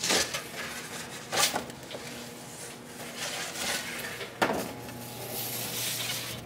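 Metal baking pans clattering and scraping on the deck of a commercial deck oven as they are shifted over and a pan is slid in. There are three sharper clanks, at the start, about a second and a half in and a little past four seconds, over a steady low hum.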